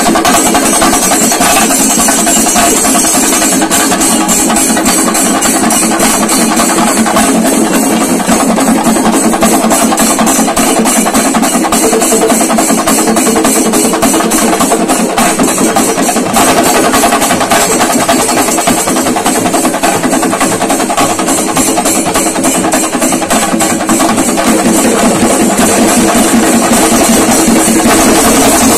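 A large massed group of chendas, Kerala's cylindrical stick-beaten drums, from two troupes played together in a fast, dense, unbroken roll, with brass hand cymbals (ilathalam) ringing over it.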